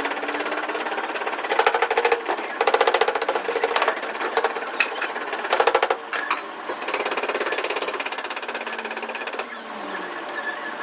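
A rapid-striking power tool, like an air hammer, run in several short bursts of a second or two, each a fast even rattle of blows.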